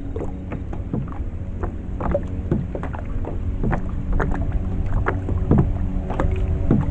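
Water sounds around a fishing kayak: irregular drips and light taps with small plinks, over a steady low rumble of water and wind.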